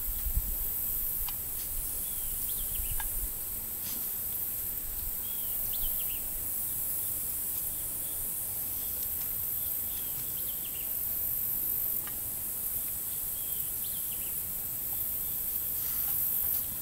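Steady high-pitched insect chirring, with a short falling chirp about every four seconds.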